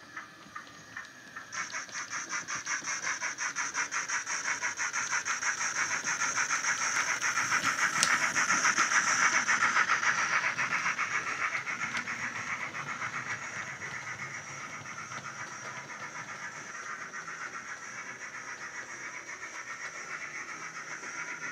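Sonic Models A5 (GCR 9N) OO-gauge tank engine's ESU LokSound 5 decoder playing steam exhaust beats through a small tablet speaker, as the model runs past. From about a second and a half in, the chuffs come quick and even with a hiss above them, growing louder toward the middle and then fading.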